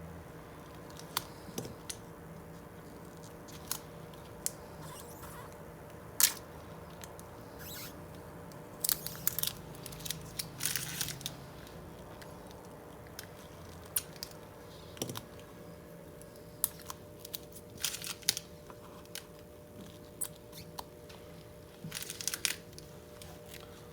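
Polarizer film being peeled off an LG Gram laptop's LCD panel: scattered sharp clicks and short crackling, tearing sounds, with the densest runs about nine to eleven seconds in and again near the end.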